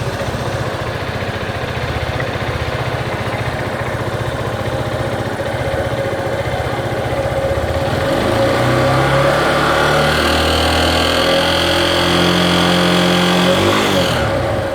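Yamaha Fazer 250 single-cylinder motorcycle engine idling, then revved up about eight seconds in and held there before dropping back near the end. Above 4,000 rpm the owner hears a cricket-like chirping from the top right of the engine, near the cam chain, which persists after oil changes and whose cause he does not know.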